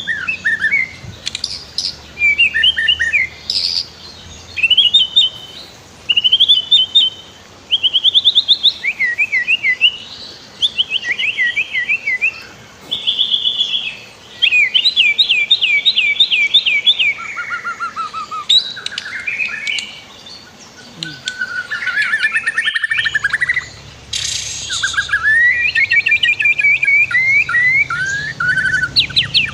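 White-rumped shama singing a continuous, varied song of fast repeated whistled notes and rising and falling trills, over a steady rush of flowing stream water. The song breaks off sharply for a moment about three-quarters of the way through, then carries on.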